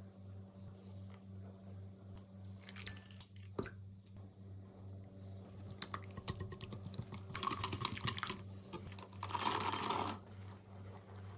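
Kitchen mixing sounds in glass bowls: scattered clicks and scrapes as a wire whisk beats eggs and wet ingredients, then a short dense rush near the end as dried cranberries are tipped from one glass bowl into another. A steady low hum runs underneath.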